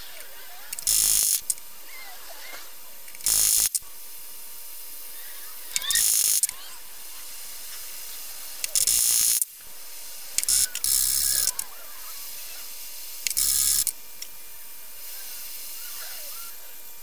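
Propane torch flames hissing steadily while a steel rod is heated in them, interrupted six times by short, loud noises about half a second each.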